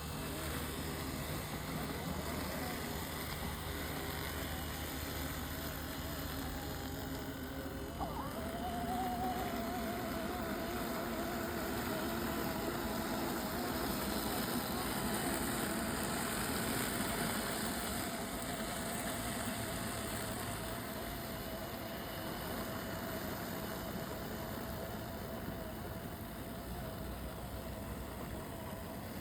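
Robotic lawn mower running over grass, with a low hum; about eight seconds in a steady motor whine starts with a short rise in pitch and then holds level.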